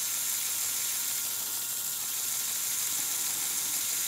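A small LEGO electric motor running slowly on power pulsed to it by a modulator's rapidly opening and closing switches, making a really weird little whining sound over a steady mechanical whir.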